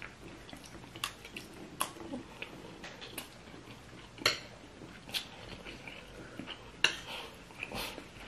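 Metal cutlery clinking and scraping against ceramic plates as two people eat rice. There are scattered sharp clinks, the loudest about four and seven seconds in, with faint chewing between them.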